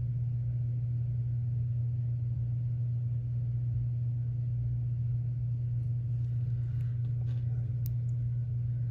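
Steady low hum with nothing else prominent, and a few faint light clicks in the last few seconds.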